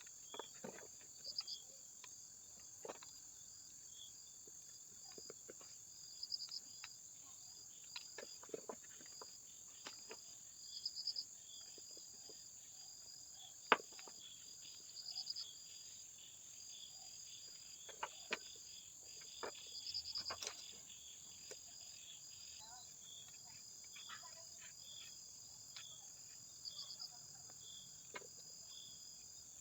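Insects chirping steadily in a high, pulsing chorus, with scattered light clicks and knocks, the sharpest about 14 seconds in.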